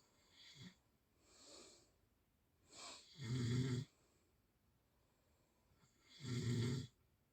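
A sleeping person snoring: two loud snores about three seconds apart, with softer breaths in between.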